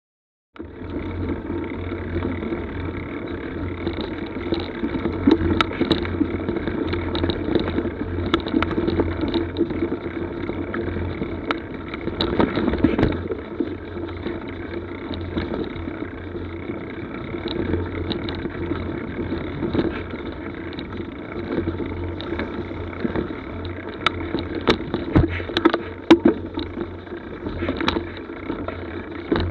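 Mountain bike climbing slowly on a dirt forest trail, picked up by a helmet or handlebar camera's microphone: a steady rumble of tyres on leaf litter and dirt, with scattered clicks and knocks from twigs and the bike's parts. It starts abruptly about half a second in.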